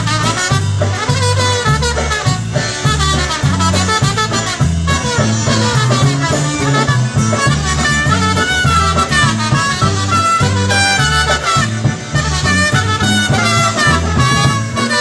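Live polka band playing an instrumental passage of a Polish polka, the bass notes alternating on a steady beat under lively melody lines.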